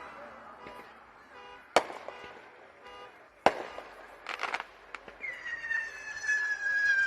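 Fireworks going off: two sharp bangs about two and three and a half seconds in, a brief crackle, then a long whistle that falls slowly in pitch near the end.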